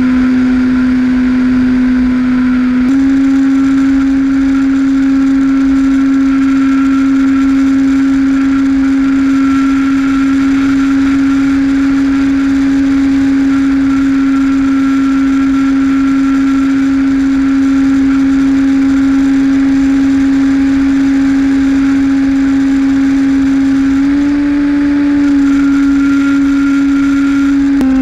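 Electric motor and propeller of a HobbyKing Skipper RC plane in flight, a steady hum heard from a camera mounted on the plane, with wind noise underneath. The pitch steps up slightly about three seconds in and again a few seconds before the end, as the throttle changes.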